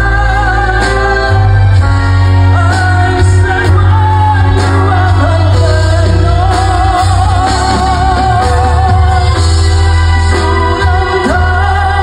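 Loud live Vietnamese pop ballad from a band and singer: long held notes with vibrato over heavy, steady bass.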